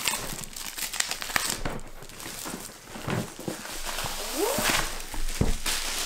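Crinkling and rustling as a cardboard board game box is handled, with a short rising squeak about four and a half seconds in and a dull thud as the box is laid down on a wooden table near the end.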